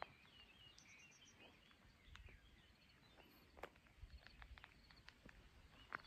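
Near silence: faint outdoor ambience with distant bird chirps and a few soft clicks.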